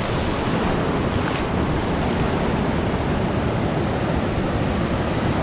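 Steady roar of surf breaking on the beach, mixed with wind buffeting the microphone.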